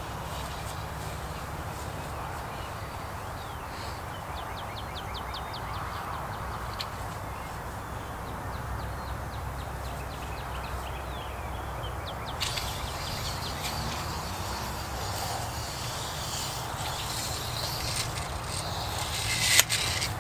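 Open-field ambience: a steady low rumble with birds calling, including a run of quick high chirps partway through, and a brief louder rustle or clatter near the end.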